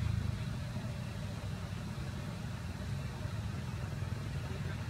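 Steady low rumble of an engine running, holding even throughout.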